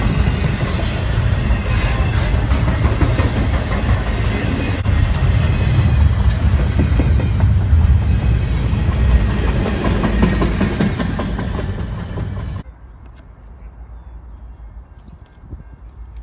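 Double-stack intermodal freight train's container cars rolling past close by on steel rails. The rail noise cuts off abruptly about three-quarters of the way through, leaving a much quieter background.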